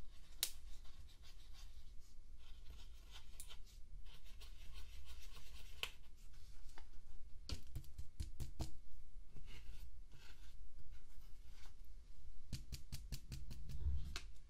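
Pressed eyeshadow being scraped and crumbled out of a plastic palette's pans: a dry scratching with quick sharp clicks, coming in clusters around the middle and again near the end.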